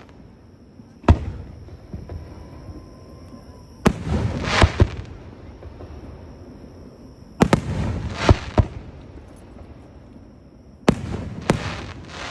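Aerial fireworks bursting: sharp bangs in four groups, single or two and three close together, each followed by a short crackle.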